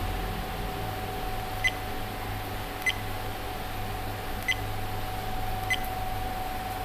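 SJCAM C200 action camera giving four short, high beeps about a second or so apart as its buttons are pressed, over a steady faint hum.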